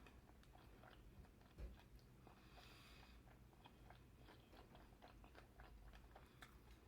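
Faint close-up chewing of a mouthful of grilled salmon, potato and roasted onion: small wet clicks and smacks, with one low bump about a second and a half in.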